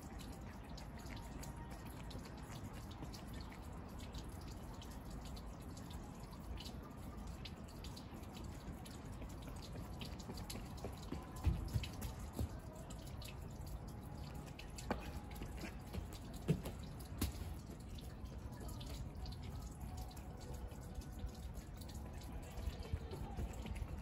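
Faint outdoor ambience with many scattered small ticks, like water dripping on a wet surface. About halfway through, a few heavier thuds: a sprinter's footfalls on the wet synthetic track as he runs past close by.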